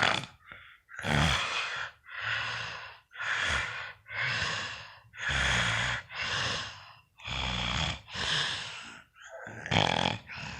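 A sleeping person snoring: a quick run of about ten loud, noisy breaths, roughly one a second, several with a low rumble underneath.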